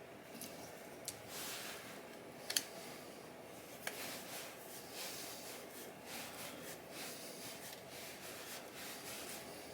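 Small metal engine parts and hand tools being handled on a workbench: a few light clicks, the sharpest about two and a half seconds in, with soft rubbing and shuffling between.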